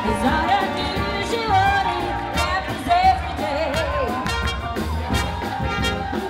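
Pop song with a singing voice over a steady low beat.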